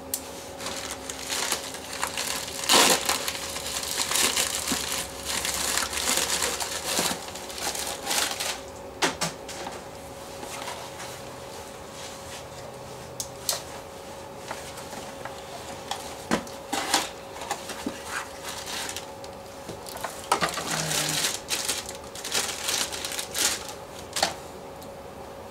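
Paper and plastic packaging rustling and crinkling as a mailer envelope is torn open and a bagged part is handled, in irregular bursts with a few sharp clicks, over a faint steady hum.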